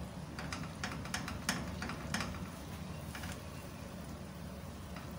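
A silicone spatula scraping and knocking against a non-stick frying pan as it scoops up a portion of egg curry: several short scrapes in the first two seconds and two more about three seconds in. A steady low hum runs underneath.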